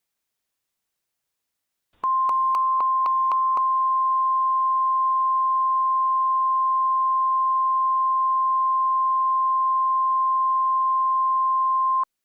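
NOAA Weather Radio warning alarm tone (the 1050 Hz attention signal): one steady high beep that starts about two seconds in and holds for about ten seconds before cutting off suddenly, with a few faint clicks in its first second and a half. It signals that a warning-level alert is about to be read, here a flash flood warning.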